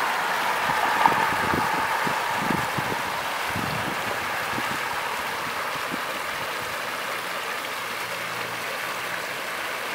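Muddy floodwater rushing and churning as it pours into a concrete box culvert, a steady rush of water. A few short low knocks sound in the first four seconds, the sharpest about a second in.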